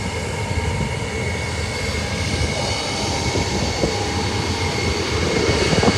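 Jet aircraft engines running, a steady high whine over a low rumble.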